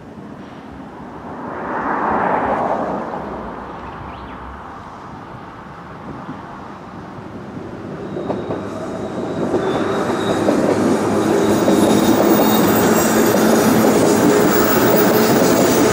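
Electric train passing close by on the track, its noise building from about eight seconds in and staying loud and steady as the cars go past.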